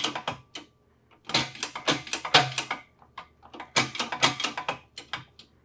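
Metal clicks and rattles from the shifter linkage on a SADEV sequential transmission as its parts are worked by hand, coming in three short bursts.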